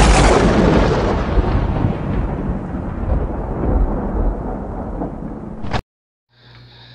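A thunder-like boom sound effect with a long rumbling tail that slowly fades over about five seconds, then cuts off abruptly.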